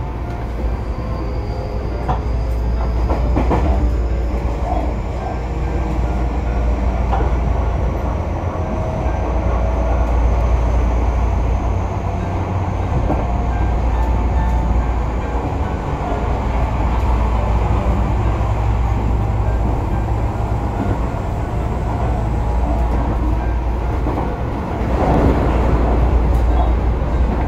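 Electric commuter train of the Tobu Urban Park Line running at speed, heard from inside the passenger car: a steady rumble of wheels on rail with some clickety-clack. A faint high whine slowly rises in pitch through the first half, and the rush grows louder near the end.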